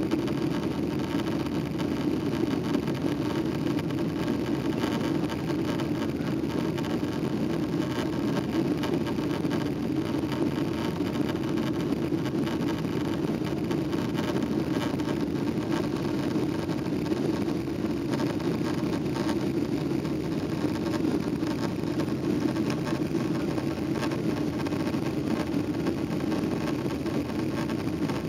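Steady jet engine and airflow noise inside an airliner cabin as the plane climbs after takeoff.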